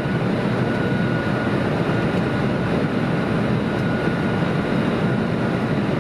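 Steady rushing cabin noise of a Boeing 747's flight deck on final approach: engine and airflow noise with a faint steady high whine running through it.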